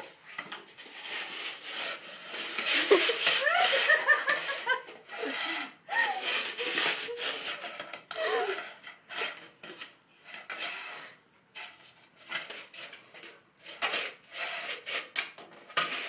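Plastic frisbee scraping and knocking on a tiled floor as a German shepherd puppy noses and paws at it, trying to lift it, with a string of short scrapes and knocks in the second half. A person laughs about three seconds in.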